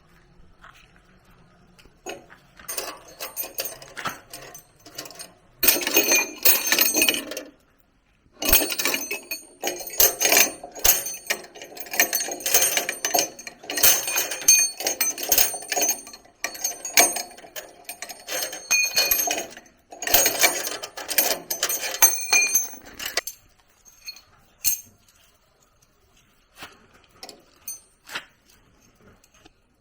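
Metal parts and tools clinking and rattling in quick, ringing bursts, with short pauses, stopping near the end and leaving a few light taps.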